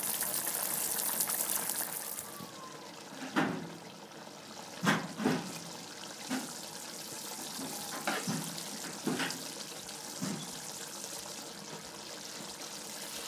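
Pot of mutton curry cooking: a steady sizzling hiss for about the first two seconds, then the thick gravy simmering with a scattering of separate bubble plops.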